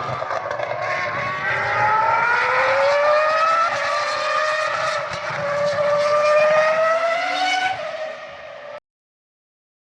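Racing engine noise at a race circuit: engines accelerating, their pitch rising steadily over several seconds. It cuts off abruptly about nine seconds in.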